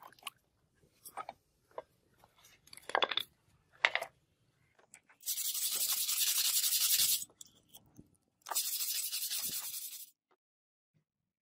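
A hand-held scrubber rubbed along a wet, rusty steel sword blade in two long scrubbing passes, each a gritty scrape lasting about two seconds. Before them come a few light clicks and splashes as the blade is lifted out of its liquid bath.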